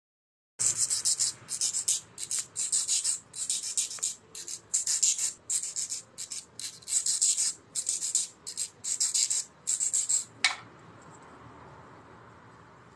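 A metal nail file rasping back and forth across a long artificial nail extension, in a quick, uneven run of short strokes for about ten seconds. The run ends with one sharp click, then only a faint hiss remains.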